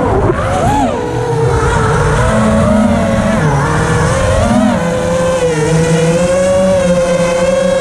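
The brushless motors and 5-inch propellers of an FPV racing quadcopter (Mr. Steele Silk V2 motors on an ImpulseRC Reverb) whining. The pitch swoops up and down with the throttle in the first couple of seconds, then holds steadier with a slight waver. A low rumble of wind on the onboard camera runs underneath.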